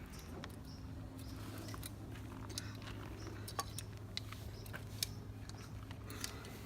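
PVC pipe cutter clicking as it is worked through the plastic water pipe, a sharp irregular click every second or so, over a steady low hum.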